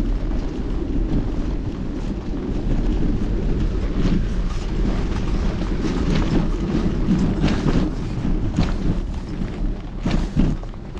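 Wind buffeting the microphone while riding, a loud, rough low rumble, with a couple of knocks near the end.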